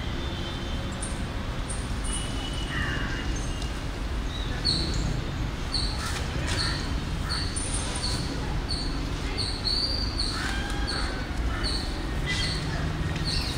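Birds calling outdoors: a short high chirp repeats about twice a second from about four seconds in, with a few other bird calls over a steady background hiss.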